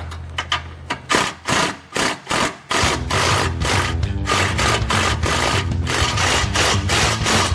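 Cordless impact driver running a nut onto a skid-plate bolt. It fires in a few short trigger bursts, then from about three seconds in runs steadily with a fast rattling hammer as the nut is tightened down.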